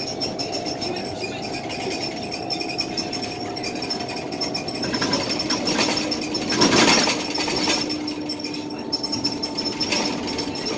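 Inside a Scania L94UB single-decker bus on the move: the rear-mounted diesel engine running with a steady hum and continuous rattling of panels and fittings, and a louder rush of noise about six to seven seconds in.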